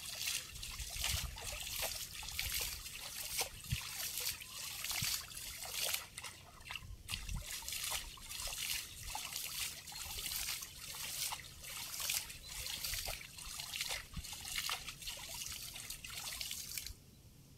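Water splashing and trickling off a wet mesh fishing net as it is hauled and shaken in shallow water, a splash roughly every second. The splashing cuts off suddenly near the end.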